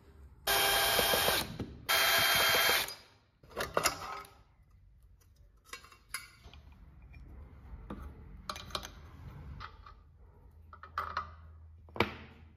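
Power screwdriver running in two short bursts of about a second each near the start, each stopping abruptly, as it unscrews the bench grinder's wheel-guard cover. Afterwards there are scattered clicks and knocks of metal parts being handled, the sharpest near the end.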